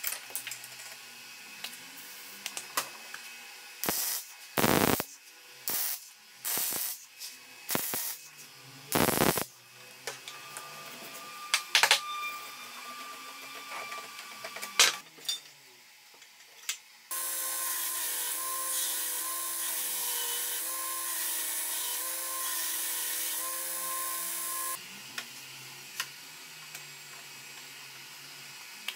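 Metalworking in a workshop: a run of sharp knocks and clanks of steel parts being handled and struck, two of them heavier, then a power tool running steadily for about eight seconds before it stops.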